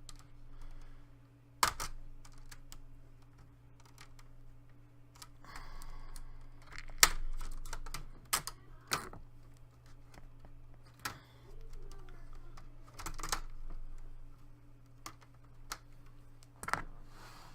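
Irregular sharp plastic clicks and taps as a laptop's plastic screen bezel is prised off its clips, with a few louder snaps spread through.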